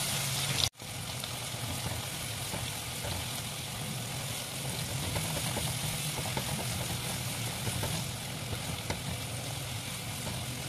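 Sliced onions with cumin seeds and whole dried red chillies sizzling in hot oil in a non-stick wok, stirred with a silicone spatula, over a steady low hum. This is the onions being fried until translucent. The sound cuts out for an instant just under a second in.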